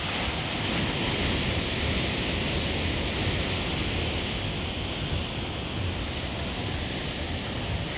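Sea surf breaking on the rocks below a seawall: a steady rushing wash of waves with a low rumble underneath.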